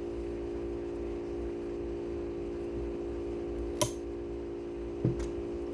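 Steady machine hum with several held tones, like a fan running, with two short clicks about four and five seconds in.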